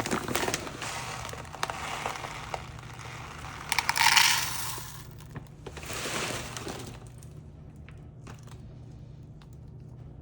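Fluval Stratum substrate granules pouring and rattling into a plastic cup, heaviest about four seconds in and dying away after about seven seconds, leaving a few light clicks.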